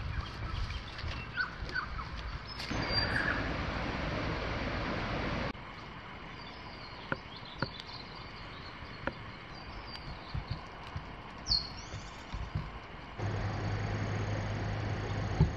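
Outdoor bush ambience with scattered short bird chirps and small clicks, including a brief rising bird call about two-thirds of the way in. The background noise changes abruptly three times, ending with a steady low hum.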